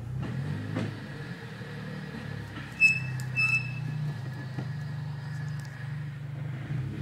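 Mitsubishi Evo X's turbocharged four-cylinder running steadily, heard from inside the cabin. About three seconds in there is a sharp knock with a brief metallic ring, and a second one just after it: the clunk that has appeared since the clutch install.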